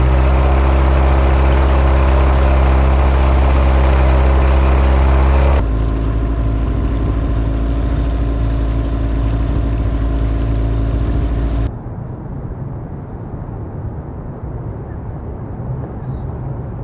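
Mercury 15 hp outboard motor running steadily under way, a loud even engine note. About five and a half seconds in it drops abruptly to a lower, quieter note. At about twelve seconds it cuts to a much quieter low rumble.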